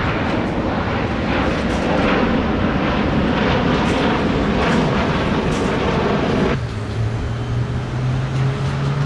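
Jet airliner passing overhead on its approach, a loud steady roar that cuts off abruptly about six and a half seconds in. A low steady hum runs beneath it and remains after the roar stops.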